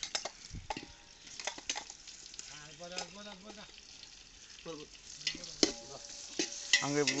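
Metal ladle clicking and scraping in an aluminium cooking pot while fried onions and masala sizzle in hot oil.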